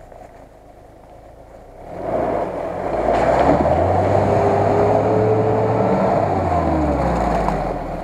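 Lada Niva (VAZ 2121) engine under hard throttle as the 4x4 ploughs into a deep mud hole, with the splash and churn of mud and water from the tyres. It comes in about two seconds in, stays loud, and dies away near the end as the car bogs down in the mud.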